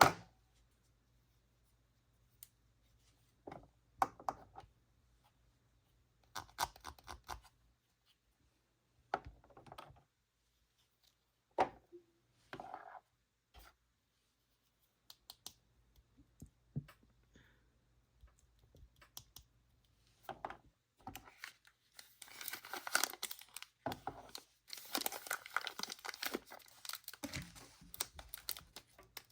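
Toy packaging being handled and opened: scattered clicks and short rustles, then a long stretch of crinkling and tearing near the end.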